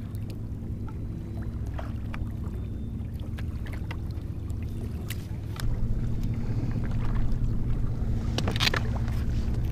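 Steady wind and water noise on a kayak on choppy water, growing louder partway through, with scattered small clicks and knocks of handling and a brief louder scrape near the end.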